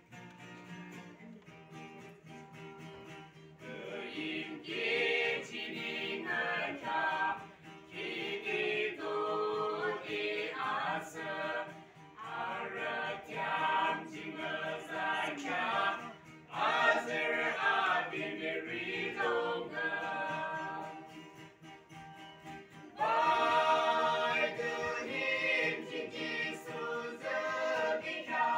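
A small gospel group singing together, several voices at once, to acoustic guitar. The voices come in about four seconds in after a soft guitar passage, and grow louder near the end.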